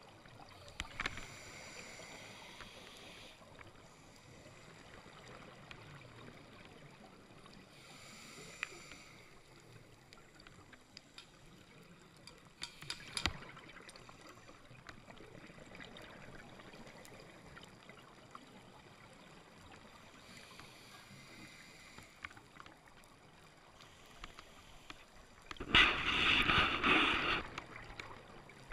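Scuba regulator breathing heard underwater: faint hissing inhalations every several seconds, then a loud gush of exhaled bubbles near the end. Scattered faint clicks run underneath.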